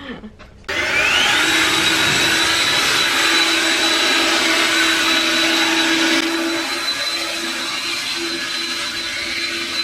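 A rechargeable cordless power tool's motor starts up about a second in, its whine rising quickly to a high steady pitch. It then runs steadily, easing slightly a little past halfway.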